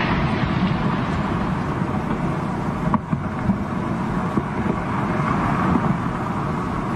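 Landslide rumbling steadily as rock and debris pour down a mountainside, with a few sharp knocks about three seconds in.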